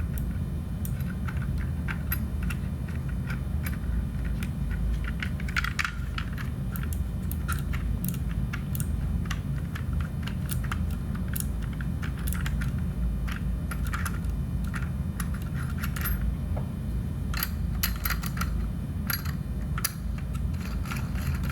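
Small metal parts clicking and clinking at irregular intervals as the back piece is fitted and tightened onto the lock cylinder of a Detex EAX-500, over a steady low hum.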